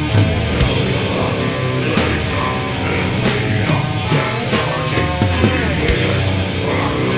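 Crust punk band recording: heavily distorted electric guitars, bass and drums playing a fast, dense riff.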